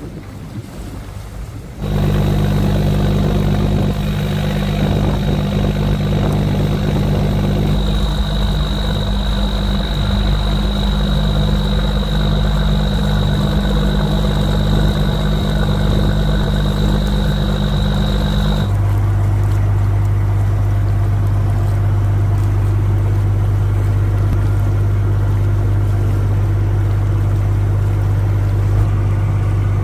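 Boat engine running steadily under load. Wind noise on the microphone comes first, then the engine sound starts abruptly about two seconds in. Its tone changes, with a high whine dropping out, about two-thirds of the way through.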